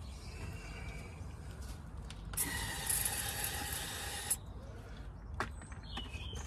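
Aerosol starting fluid (Easy Start) sprayed into the carburettor of an air-cooled VW flat-four that will not start on its own fuel: one steady hiss of about two seconds, from a little past two seconds in. A short click follows near the end.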